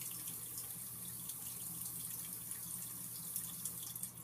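Steady background hiss with a faint low hum, unchanging and without distinct events.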